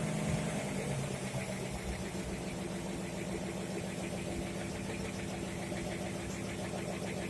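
Engine driving a fire pump, running steadily during a water-intake setup with hydroelevators; its note settles slightly lower about half a second in.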